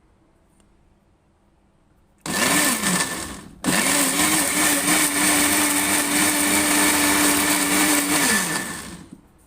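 Electric kitchen blender run in two goes: a short pulse about two seconds in, then a longer run of about five seconds, its motor speeding up, holding steady and winding down.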